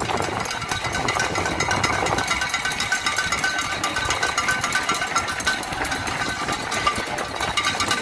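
Footsteps of a large pack of half-marathon runners pattering on the road as they pass in a dense, rapid rhythm of many small impacts. Faint repeated ringing tones sound from about two seconds in.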